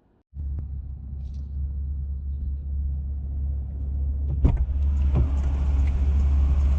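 A car driving: a steady low rumble that starts suddenly and grows gradually louder, with a couple of faint clicks about four and five seconds in.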